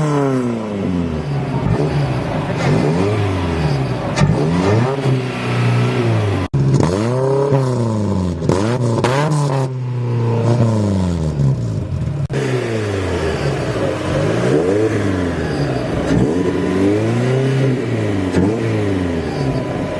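Off-road 4x4 engine revved up and down over and over, its pitch rising and falling every second or two, with a brief cut about six and a half seconds in.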